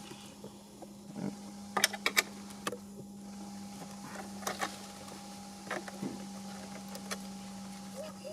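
Scattered light clicks and taps of a hand tool undoing an 8 mm bolt, over a steady low hum.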